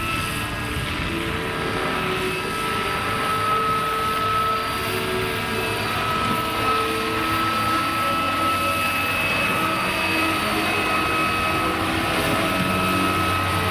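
Electric-powered 1/8-scale Vario Westland Lynx model helicopter in flight. Its motor and rotors give a steady high whine, with lower tones that shift a little in pitch as it manoeuvres.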